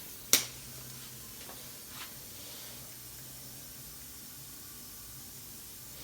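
One sharp click just after the start, then two faint taps over a steady faint hiss.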